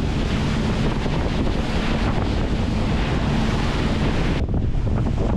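Wind buffeting the microphone on a tour boat running at speed, over the rush of its wake spraying alongside and a low steady engine hum. The hiss drops off suddenly about four seconds in.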